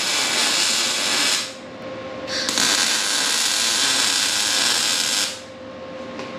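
Wire-feed welder arc crackling in two runs: the first stops about a second and a half in, the second runs from about two and a half seconds to about five seconds. A steady faint hum continues underneath.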